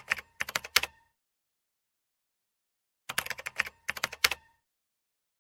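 Two short bursts of rapid computer-keyboard typing clicks, about a second each, one at the start and another about three seconds in, with complete silence between them.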